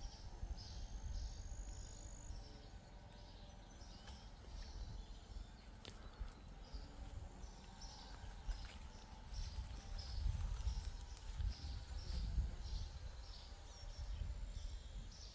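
Faint outdoor ambience: a high chirping that repeats about three times a second, over a low rumble.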